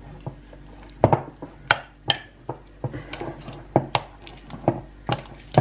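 A metal spoon stirring mascarpone and lemon curd in a glass bowl, clinking and scraping irregularly against the glass.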